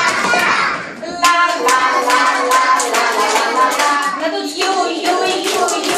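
A group of young children singing a song and clapping their hands in a steady rhythm. The clapping starts about a second in.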